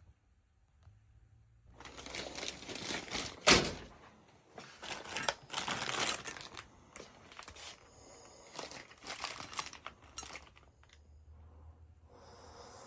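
Irregular clicks, clatter and rustling, with one loud sharp knock about three and a half seconds in.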